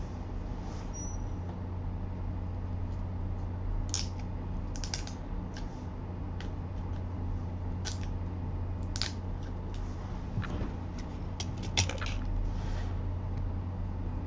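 Steady low electrical hum with scattered light clicks and ticks, a dozen or so, coming from about four seconds in to near the end.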